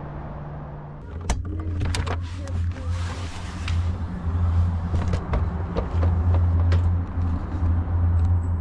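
RV entry door being unlatched and opened, a few sharp clicks and knocks, over a steady low hum that starts about a second in.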